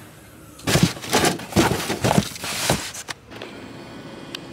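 Irregular bumps and rustles of a phone being handled inside a car, then a steady low hum.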